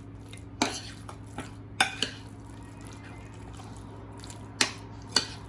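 Chicken pieces being mixed into a thick yogurt-and-spice marinade: wet squishing with about five sharp clicks against the bowl.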